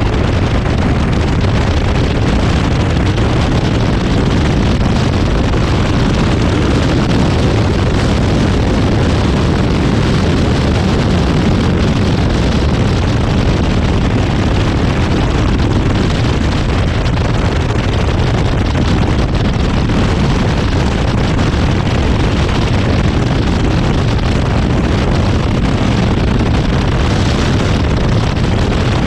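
Zenos E10R's turbocharged four-cylinder engine running hard on track, heard from the open cockpit and mixed with steady wind rush over the microphone.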